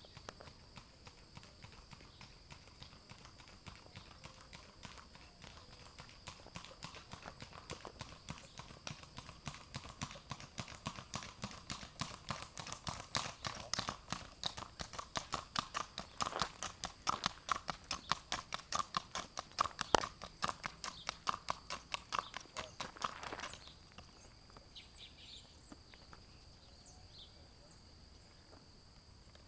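Hoofbeats of a bay horse mule on an asphalt road: quick, even clip-clop of its smooth racking gait, growing louder as it comes near and passes, then stopping abruptly a few seconds before the end.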